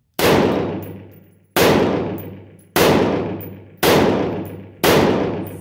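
AR-15 rifle firing 5.56 rounds through a Keymo MicroBrake single-chamber muzzle brake: five shots about a second apart, each ringing out for nearly a second before the next.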